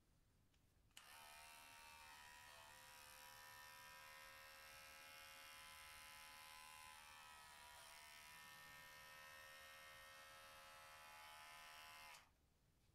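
Electric pet hair clipper switched on about a second in, running with a steady buzz, and switched off near the end.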